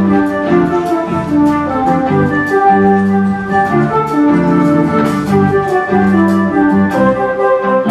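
Background music: sustained keyboard chords over a steady beat.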